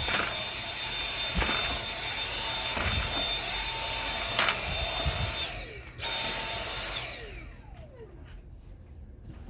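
Dyson V7 cordless stick vacuum running with a steady high whine, with a few light knocks. It cuts out briefly a little past halfway and restarts, then about two-thirds of the way in it is switched off and the motor whine falls away as it spins down.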